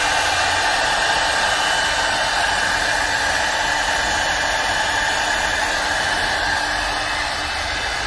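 CNC wood turning lathe with its high-speed router spindle milling flutes into a turned wooden baluster: a steady motor whine over a rushing hiss, easing slightly near the end.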